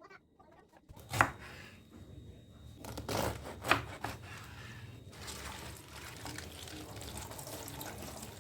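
Two sharp knocks of kitchenware, then water running steadily from a tap into a sink.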